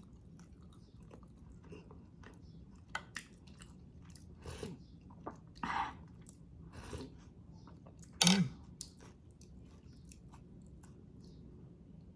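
Close-miked eating sounds of a person chewing a mouthful of sinigang na pampano: scattered small wet mouth clicks and bites, with one louder, brief sound about eight seconds in.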